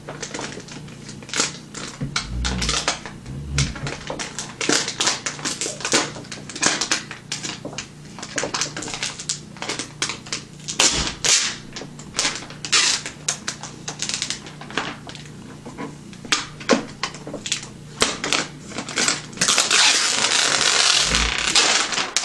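Protective plastic wrap and sticky paper being peeled off a new iMac, crackling in irregular sharp snaps, then a longer continuous rip near the end.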